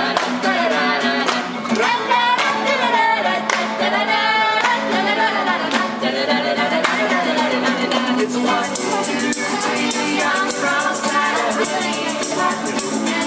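Live acoustic street band: several female voices singing together over strummed acoustic guitar and ukuleles, with tambourines jingling in time, the tambourines coming through more strongly from about two-thirds of the way in.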